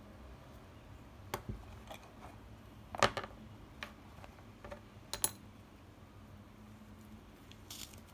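Small metal and stone fire-kit pieces being handled and set down on a cutting mat: scattered clicks and taps, the loudest about three seconds in. Near the end comes a short scrape as the lid of a small metal tin is twisted open.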